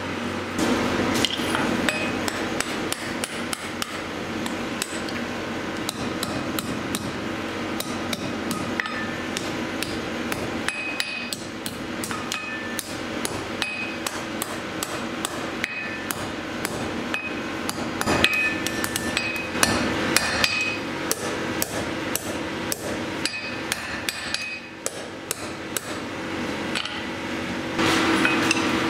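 Blacksmith's hammer striking hot steel on an anvil: many blows in an uneven rhythm throughout, some followed by a short metallic ring, over a steady low hum.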